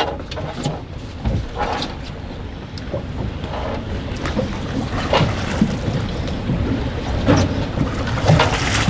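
Strong wind buffeting the microphone aboard an anchored small boat, a steady low rumble, with a few short knocks scattered through.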